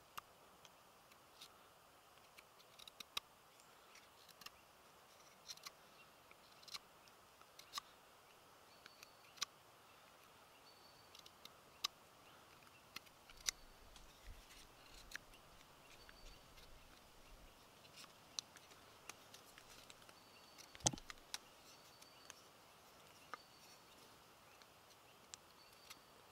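Knife whittling a wooden fork: faint, irregular crisp clicks as the blade cuts and pares the wood, with one louder snap about three quarters of the way through.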